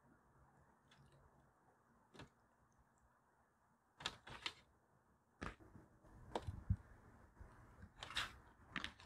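Faint, scattered short clicks and soft taps from hands stuffing silverberries into a raw chicken over a metal tray, one about two seconds in and more from about four seconds on.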